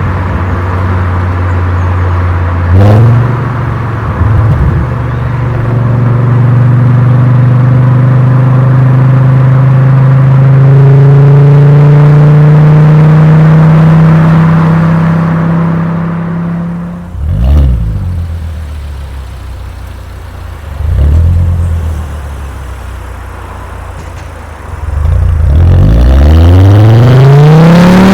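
Volkswagen Golf Mk4 VR5's 2.3-litre five-cylinder engine through its exhaust while driving: a long pull rising slowly in pitch, a sudden drop with two short revs around the middle, then a steep climb in revs near the end.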